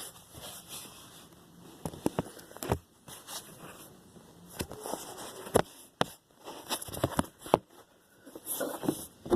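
Irregular clicks, knocks and rustles of things being handled close to the microphone, with a few sharper knocks scattered through.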